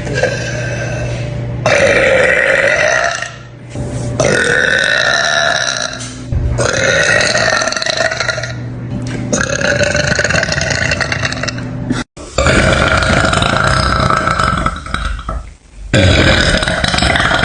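A woman burping loudly over and over: about six long, deep burps, each lasting two to three seconds, one after another with only short breaks between them.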